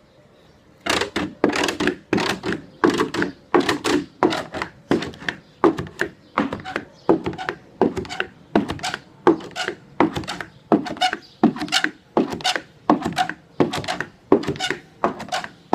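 Pogo stick bouncing on a wooden deck: an even run of thunks as its tip lands on the boards and the spring compresses, about one and a half a second, starting about a second in and continuing without a break.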